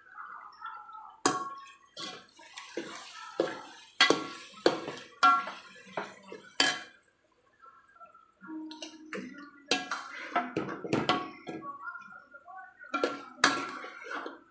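A metal spoon knocking and scraping against the side of a hammered metal cooking pot while stirring a thick masala, in a run of sharp, ringing clanks. The clanking pauses briefly around the middle, then starts again.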